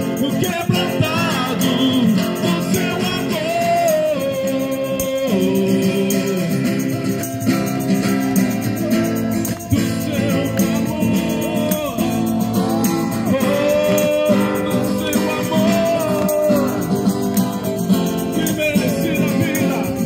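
Music: a Portuguese-language Christian worship song playing, its melody line holding notes and gliding between them over steady accompaniment.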